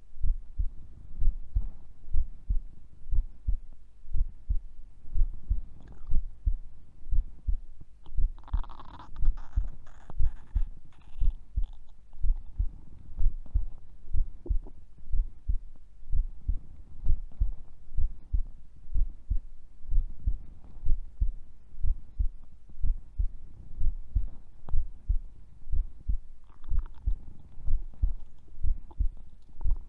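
A sleeping woman's heartbeat heard through a body-contact microphone: steady low thumps a little faster than once a second. Stomach gurgles ride over it, a longer one about a third of the way in and a fainter one near the end.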